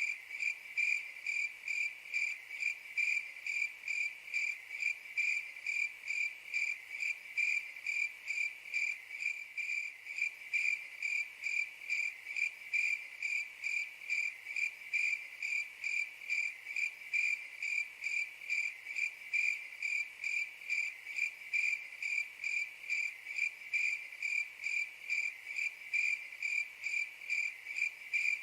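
A cricket chirping: one high, even-pitched chirp repeated in a steady rhythm of about three chirps a second.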